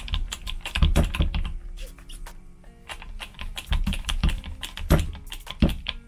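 Hand-pumped hydraulic crimper at work: clusters of sharp clicks and knocks from the pump-handle strokes as the lug is crimped, over background music.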